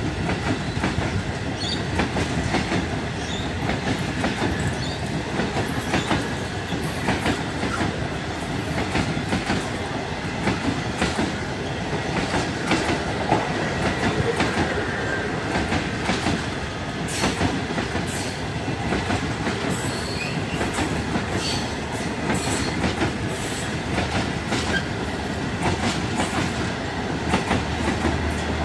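Indian Pacific's stainless-steel passenger carriages rolling past at speed: a steady rumble of wheels on rail with a continual run of sharp clicks from the wheels striking the rail joints.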